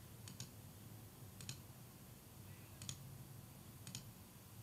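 Faint computer mouse clicks, in four quick pairs about a second apart, over a low steady hum of room tone.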